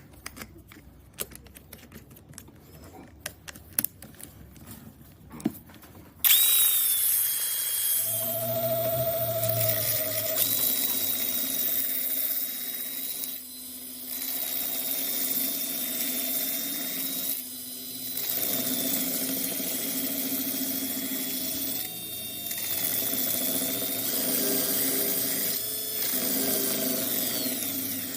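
A few light clicks and handling knocks, then about six seconds in an electric power tool starts abruptly and runs steadily with a high whine. It drops out briefly three times.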